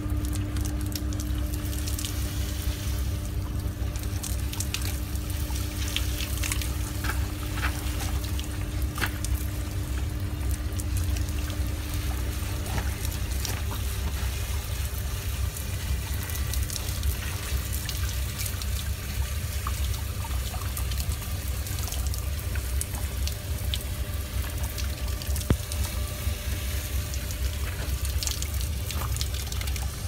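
Water from a hose spraying onto and running off the condenser coil of a package-unit air conditioner, a steady splashing hiss with scattered drip ticks. A steady low rumble runs underneath, and a steady hum stops about halfway through.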